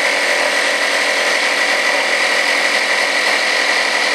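Black & Decker portable power unit's built-in 12-volt air compressor running steadily, building air pressure toward about 120 psi. It is a loud, even buzz with a prominent high whine.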